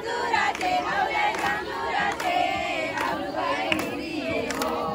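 A group of women shouting and singing together in an excited festive cheer, their voices overlapping, with a few sharp claps.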